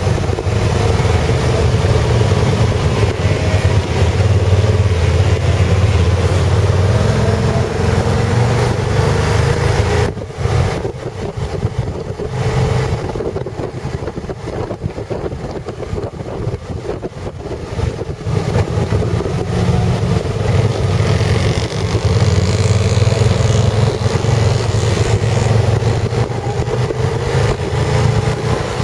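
Motorbike engine running at road speed with wind rushing over the microphone. About ten seconds in the engine note drops off sharply as the throttle eases, then it builds back up some nine seconds later.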